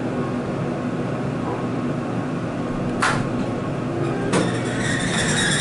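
Hydraulic elevator cab at rest at the ground floor with a steady hum. Two sharp clicks come about three and four seconds in, followed by a brighter hiss as the doors begin to open.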